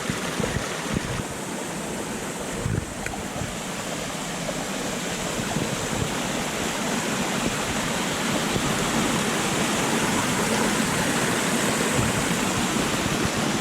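Mountain stream rushing, swollen with rain runoff: a steady wash of water noise that grows gradually louder. Wind buffets the microphone in the first couple of seconds.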